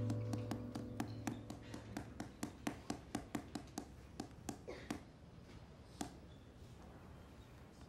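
Pencil tapping on a school desk, about four quick taps a second, thinning out after about five seconds. Background music fades out over the first couple of seconds.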